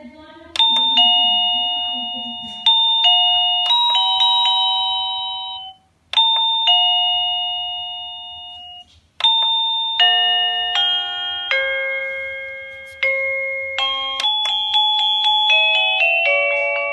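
Jerrybox wireless doorbell chime unit playing its electronic tunes: a two-note ding-dong rings several times, stops briefly, rings again, then after a second short break a longer melody of many notes plays. Each note starts sharply and dies away.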